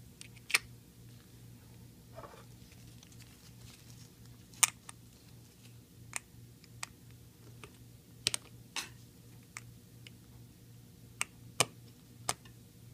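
Sharp, irregular small metallic clicks and taps from a brass adjustable case-back wrench being fitted and adjusted against a wristwatch's case back, about a dozen in all, the loudest about a second in, near five seconds and near eleven and a half seconds. A faint steady low hum runs underneath.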